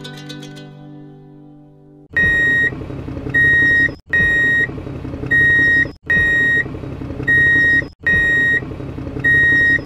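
A fading plucked guitar note, then from about two seconds in a loud electronic beep-beep over a low rumble. The pattern repeats four times in two-second loops, with abrupt cuts between them.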